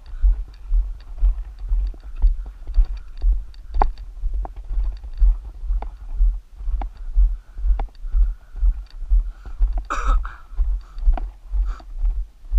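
Walking footsteps on a gravel dirt road jolting a body-carried camera: dull low thumps about twice a second, with faint crunches of gravel underfoot.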